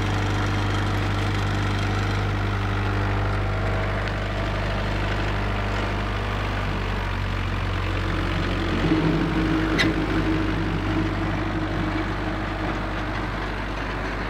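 The 44-horsepower Kubota turbo-diesel engine of a Carlton SP4012 stump grinder running steadily. About nine seconds in, the sound changes and there is a sharp click as the cutting wheel is engaged and starts spinning.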